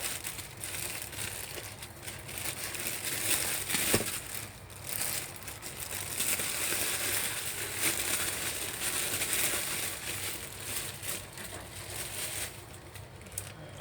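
Paper and plastic wrapping crinkling and rustling irregularly as vegetables are unwrapped from plastic bags and wrapped in paper, with a sharp tap about four seconds in.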